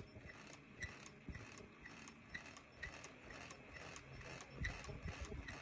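3-ply face mask making machine running, a steady mechanical clatter with a regular click about twice a second.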